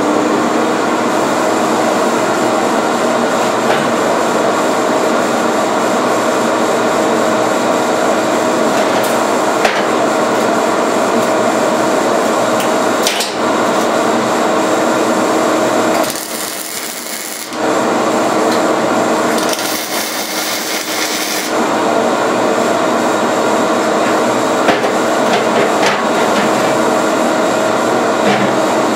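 Henlex HV102 120 V vacuum turbine running steadily at full speed with a steady hum and a loud rushing noise. The sound dips for a moment about sixteen seconds in.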